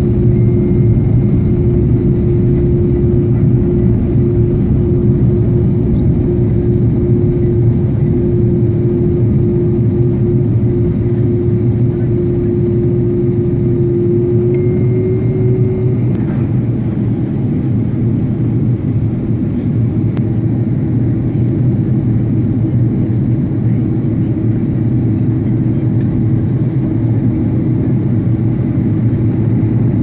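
Airliner cabin noise on the approach to landing: a steady rush of engines and airflow with a droning hum that shifts a little in pitch about halfway through.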